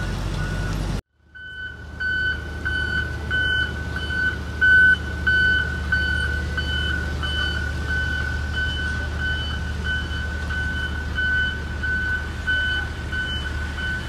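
Pneumatic-tyred road roller's reversing alarm beeping steadily, about two beeps a second, over the low rumble of its diesel engine. It follows a second of background music that cuts off.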